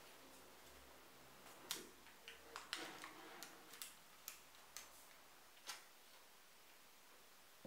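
Quiet, irregular clicks and taps, about ten of them over four seconds, from a knife cutting through a chilled Oreo icebox cake.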